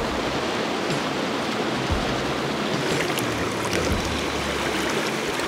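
Mountain stream rushing over rocks in shallow riffles: a steady, even rush of water. A few brief low bumps sound about two seconds apart.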